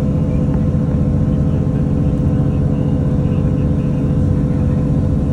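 Cog railway train's engine running steadily under load, a constant low drone.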